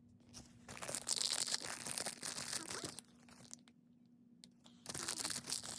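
Plastic toy packaging crinkling and tearing as blind-pack collectible figures are opened by hand, in two bouts with a short pause between.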